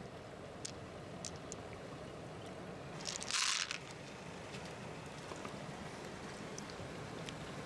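A handful of pearls poured into a clam shell: one short clatter about three seconds in, with a few faint light clicks before it.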